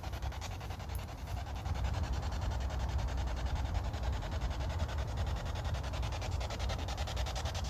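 Spirit box static played through a small portable speaker: a steady hiss of radio noise with a fast, even flutter as the device sweeps through the radio band.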